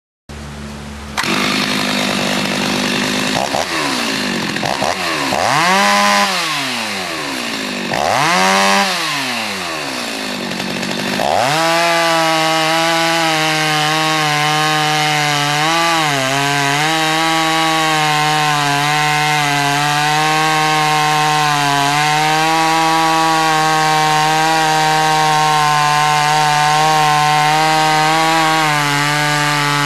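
Stihl MS390 two-stroke chainsaw running: it is revved up and down twice, then held at full throttle from about twelve seconds in as the chain cuts through a log. The engine note dips briefly a couple of times during the cut.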